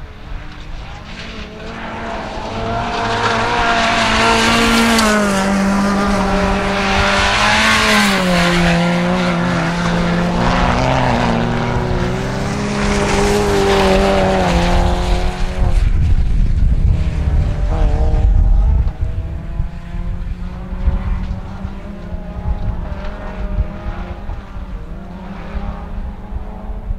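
1400cc-class rallycross car engines revving hard, the pitch climbing and dropping again and again with gear changes. From a little past halfway, a low rumble of wind on the microphone takes over and the engines carry on more faintly.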